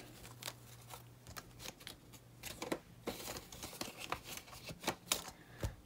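Paper banknotes rustling and crinkling as they are handled and slid in and out of a clear plastic cash envelope, with scattered small ticks and a busier stretch of rustling a few seconds in.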